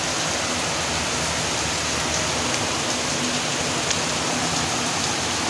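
Heavy rain pouring down steadily, an even hiss without a break.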